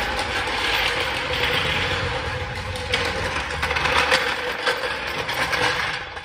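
A machine running steadily and loudly: a constant hum with a hiss above it and scattered clicks. It cuts off suddenly at the end.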